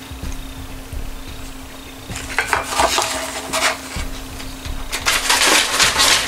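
Cardboard burger box crackling as it is handled on a plate about two seconds in, then a paper fast-food bag rustling loudly as a hand reaches into it from about five seconds in.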